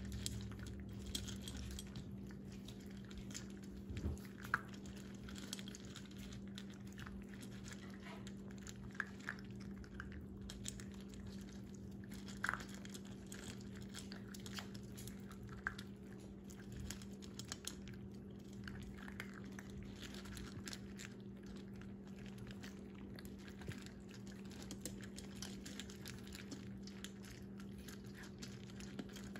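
Shetland sheepdog puppies crunching and chewing dry kibble from a stainless steel bowl: a steady patter of small crunches and clicks, over a steady low hum.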